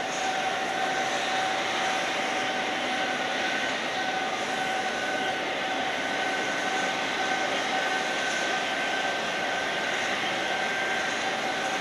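Airbus A330 airliner's steady jet whine on the apron: two high whining tones held over a broad rush, with no change in pitch.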